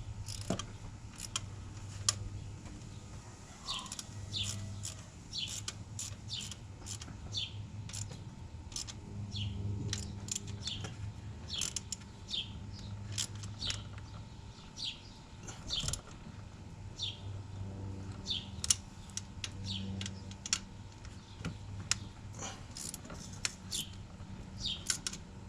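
Birds chirping in short, irregular calls, one or two a second, over an on-and-off low hum.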